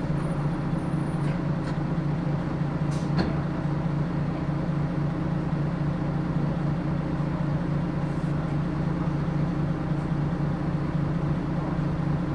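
A Nishitetsu route bus's engine idling steadily while the bus stands at a stop, heard from inside the cabin, with a brief hiss about three seconds in.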